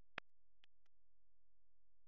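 Near silence with a faint steady hum and three short, sharp clicks in the first second, the loudest about a quarter second in.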